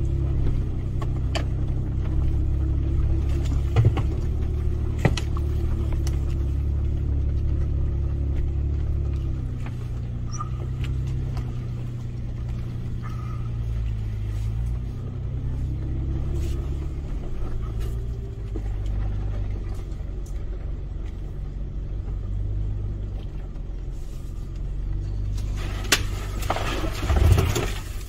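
Toyota FJ Cruiser's V6 engine running as it drives along a rough forest dirt track, heard from inside the cab as a steady low rumble that rises and falls a little. There are a few sharp knocks early on and a louder noisy rush near the end.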